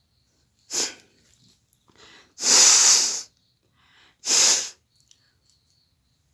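A woman sneezing three times: a short sneeze about a second in, a longer, louder one around two and a half seconds in, and another short one about four and a half seconds in, with quick breaths in before them.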